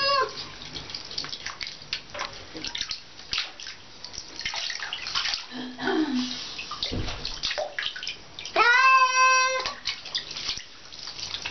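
Cat being washed in a bathtub: water splashing and dripping as it is handled. About three-quarters of the way through, the cat gives one loud meow of about a second, complaining at the bath.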